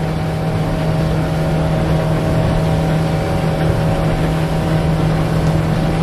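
Outboard motor of a small inflatable boat running steadily under way: a constant drone over an even rushing hiss of water.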